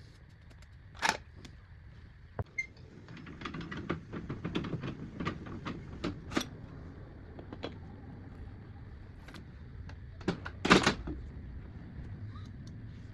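Scattered clicks and knocks of tools and parts being handled during a motorcycle inner-tube repair. There is one sharp knock about a second in, a busy run of small clicks a few seconds later, and the loudest knocks near the end.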